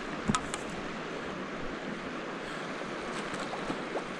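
Creek water rushing steadily, with a short knock about a third of a second in.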